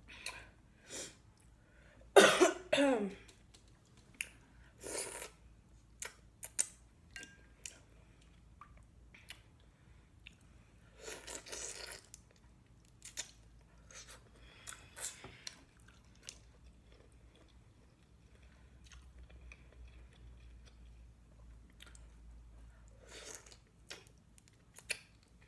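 Close-miked eating of shrimp and mussels: scattered wet chewing and mouth noises, with one loud cough about two seconds in.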